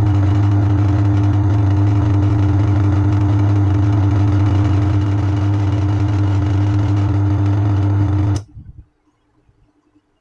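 Washing machine wash motor running with a steady hum, switched by a mechanical wash timer, then cut off abruptly with a click about eight seconds in: the timer's stop in its cycle of turning the motor one way and then the other.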